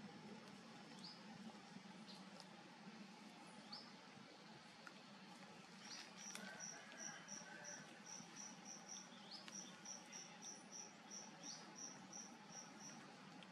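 Faint outdoor ambience with an insect chirping. From about six seconds in until near the end comes an even run of short, high-pitched chirps, about three a second. A few single rising chirps come every couple of seconds throughout.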